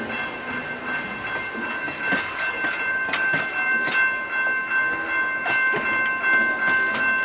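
Vintage passenger cars of a passing train rolling by, with the wheels clicking a few times over rail joints about two to four seconds in. Steady high-pitched ringing tones run throughout.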